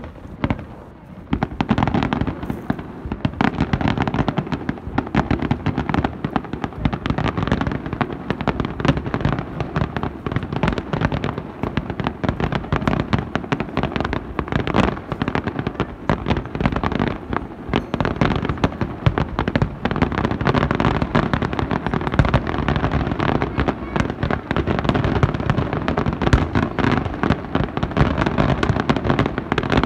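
Fireworks display: aerial firework shells bursting in a dense, continuous barrage with crackle. After one sharp bang at the start, from about a second in the bangs follow one another many times a second without a break.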